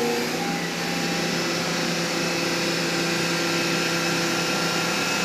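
Excavator's diesel engine running steadily, a constant mechanical hum with a few held tones.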